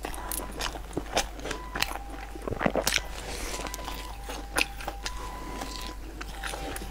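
Close-miked eating: biting into and chewing a piece of chocolate-chip bread, with scattered sharp mouth clicks.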